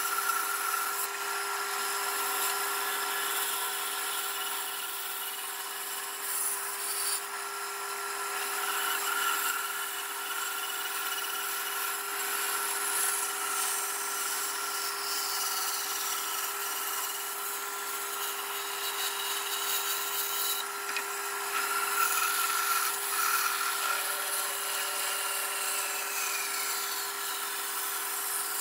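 Bandsaw running and cutting curves through a thick softwood block: a steady motor hum under the continuous hiss of the blade in the wood.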